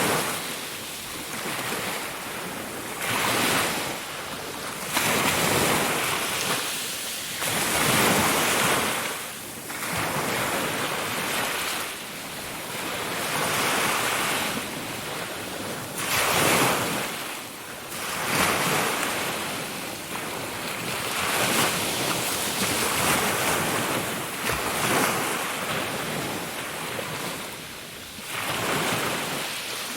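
Ocean waves breaking and washing in, a continuous rush of surf that swells and falls every few seconds.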